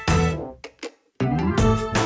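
Upbeat background music with a regular beat. It fades out about half a second in, breaks off to silence for a moment, then starts again just past a second in.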